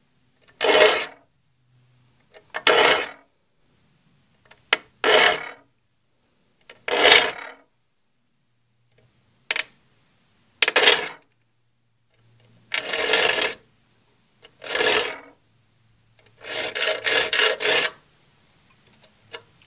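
Saw file rasping across the crosscut teeth of a handsaw held in a vise, sharpening alternate teeth with one push stroke roughly every two seconds, each stroke under a second and about ten in all. Near the end comes a longer pass broken into several quick strokes.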